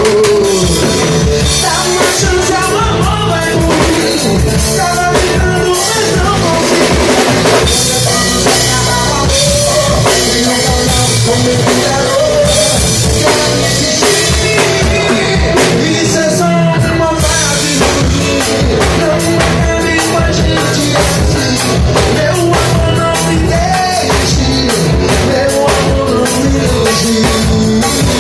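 Music with a drum kit keeping a steady beat under bass and a melodic line.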